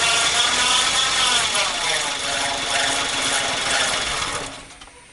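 Car alternator giving off a loud grinding whine whose pitch bends down and back up with engine speed, dying away about four and a half seconds in. The owner suspects a worn alternator bearing.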